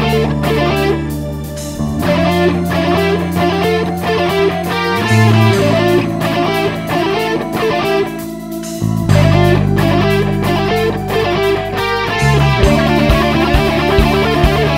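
Music led by electric guitar over sustained low bass notes that change every couple of seconds.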